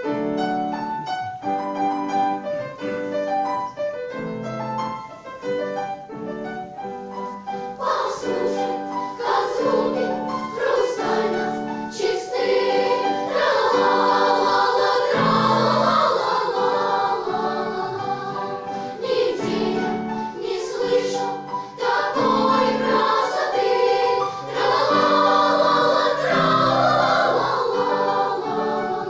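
Children's choir singing a slow piece with sustained notes over an accompaniment; it grows fuller and louder about halfway through.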